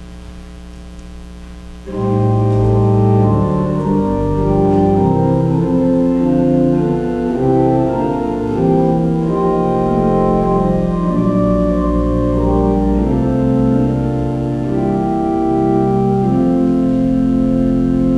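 Church organ playing a hymn introduction in sustained chords with a moving melody, coming in about two seconds in after a low steady hum.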